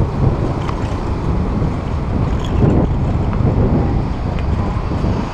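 Wind rushing over the microphone of a camera on a moving bicycle, a loud steady low rumble, mixed with street traffic noise.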